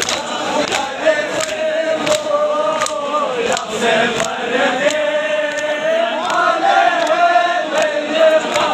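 A crowd of men chanting a Balti noha (Shia mourning lament) in unison, in long held phrases. Sharp slaps of hands beating chests (matam) keep time at about one and a half strikes a second.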